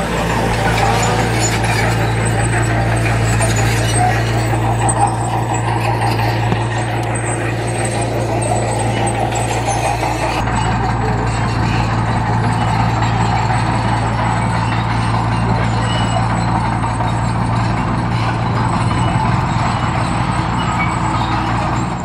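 Komatsu D20P bulldozer's diesel engine running steadily, a constant low hum with no change in pitch.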